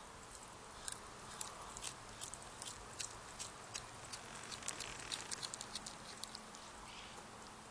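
A cat chewing a rat: faint, irregular crunching clicks, thickest in the middle and thinning out near the end.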